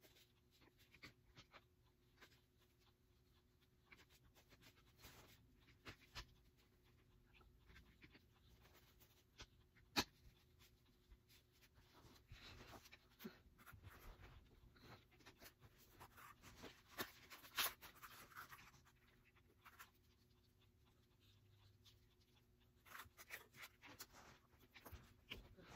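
Mostly near silence, broken by faint scattered clicks and rustles of hands handling a Chicco stroller's frame and plastic parts. One sharp click about ten seconds in, and a busier run of clicks and rustling around seventeen seconds.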